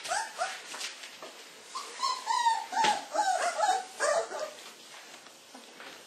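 Young Laekenois puppies whimpering and yipping as they play, a quick run of short high cries in the middle, several sliding down in pitch.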